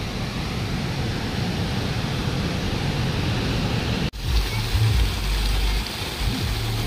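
Fast, swollen Ganga river in spate, whitewater rushing over boulders with a steady, storm-like roar. About four seconds in the sound cuts to a small waterfall spouting down a stone wall, with an uneven deep rumble over the splashing.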